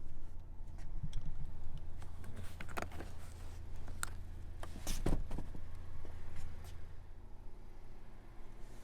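2019 Honda Civic Type R's turbocharged 2.0-litre four-cylinder idling with a steady low hum, and a handful of sharp clicks and knocks about halfway through, the loudest near the middle.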